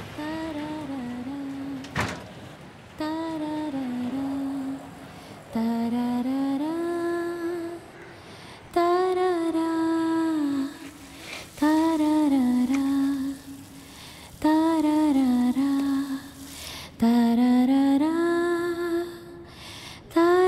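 A woman humming a slow, wordless melody in phrases a couple of seconds long with short pauses between, each gliding up and down in pitch. A single sharp click comes about two seconds in, before the humming starts.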